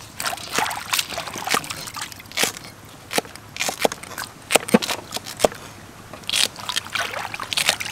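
Irregular clicks and knocks with water sloshing and trickling, the sounds of food or utensils being handled in water.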